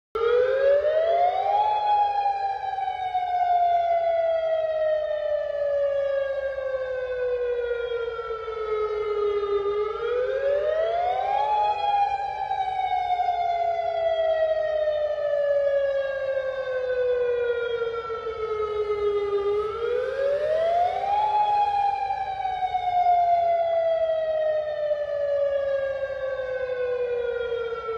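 Warning siren wailing: each cycle rises quickly in pitch, then slides slowly down over about eight seconds, three times over.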